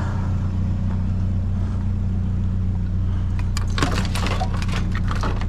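Vehicle engine idling steadily, with a run of clattering knocks and rattles starting about three and a half seconds in.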